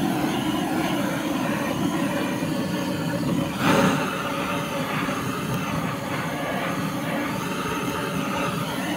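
Handheld butane gas torch on a canister, its flame running steadily as it scorches the inside of a wooden beehive box to kill pest larvae and eggs. It is louder for a moment about halfway through.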